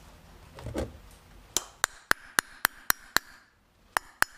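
Small hammer tapping on a brake caliper, about four light metallic taps a second: a run of seven, a brief pause, then more taps near the end. A dull knock of the caliper being handled comes just before the taps.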